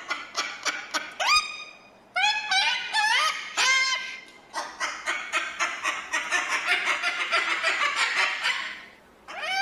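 Cockatoo calling: a quick run of short clicking calls, then a series of whistled calls that rise and fall in pitch, then several seconds of rapid chattering, ending with one falling call.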